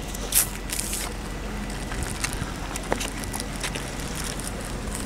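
Steady wind noise on the microphone, with scattered clicks and rustles of the phone and fishing gear being handled.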